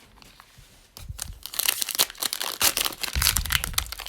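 Plastic wrapper of a trading-card pack crinkling and tearing as it is ripped open and handled, starting about a second in. There is a low handling rumble near the end.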